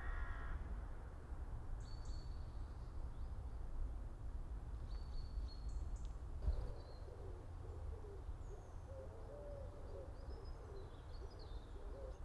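Outdoor park ambience: birds chirping with short high calls every few seconds, and from about six seconds in a lower, wavering repeated call, over a steady low rumble of wind.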